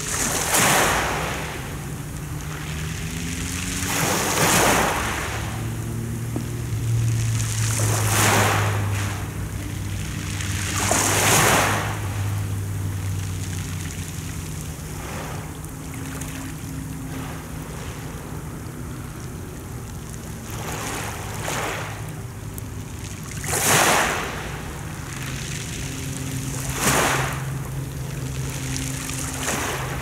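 Small sea waves breaking and washing up a pebble beach every few seconds, each a swell of hissing surf over the stones. A low steady hum runs underneath.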